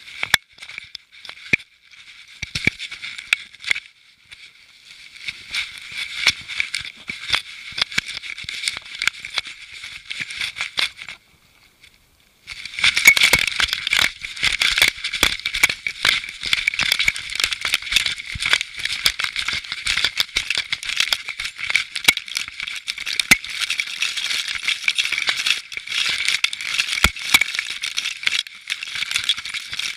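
Continuous scratchy rattling and rubbing from a camera strapped to a moving dog: fur brushing the mount and the housing knocking with each movement. It drops out briefly about eleven seconds in, then comes back louder and denser.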